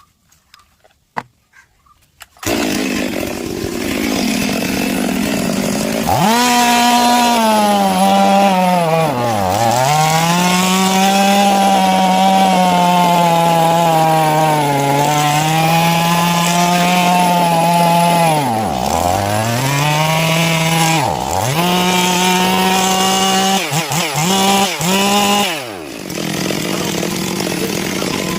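Stihl MS 381 two-stroke chainsaw engine catching and idling, then held at full throttle. Its pitch sags sharply several times as it bogs down under load and recovers. Near the end come a few quick revs before it drops back to a lower, even running note.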